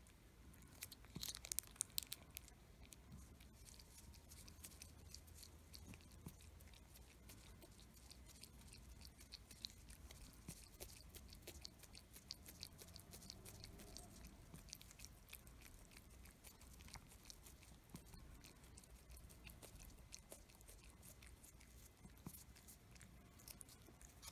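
A cat licking and chewing paste squeezed from a plastic stick pouch: faint, wet clicks and smacks of its tongue and teeth, a little louder about a second or two in.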